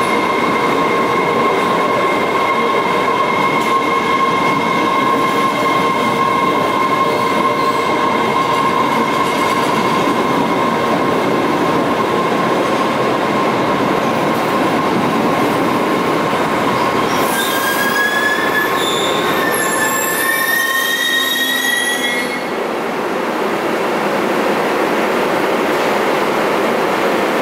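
MBTA Red Line subway train pulling into an underground station: a steady rumble of wheels on rail with a steady whine. About two-thirds of the way in come a few seconds of high sliding squeals as it brakes to a stop, then it settles to a lower hum.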